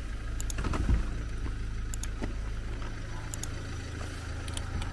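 Steady low rumble of a car's engine and running gear, heard from inside the taxi's cabin. There is a single thump about a second in and a few faint clicks.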